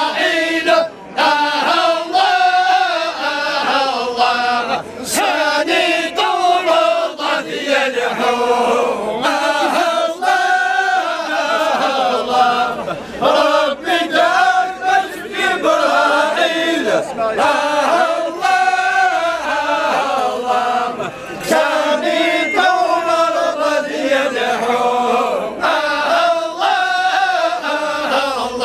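A group of men chanting a Kabyle Sufi dhikr together, their voices rising and falling in a continuous melodic line.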